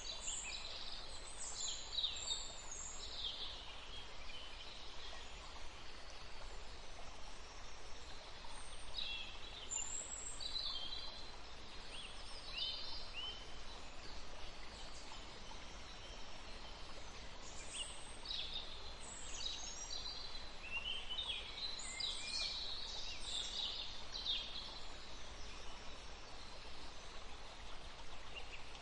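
Songbirds chirping and calling in short, high bursts that come in clusters, over the steady rush of a small forest stream.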